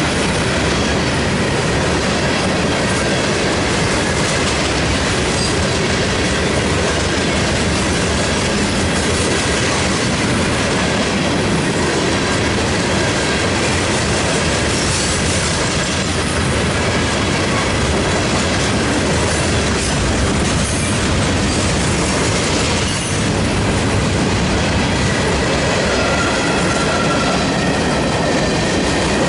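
Freight train cars rolling past close by: a steady, loud rumble of steel wheels on rail, with clickety-clack over the rail joints.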